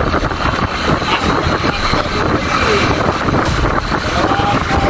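Loud wind rumble buffeting the microphone while riding along at speed, with a motor vehicle running underneath.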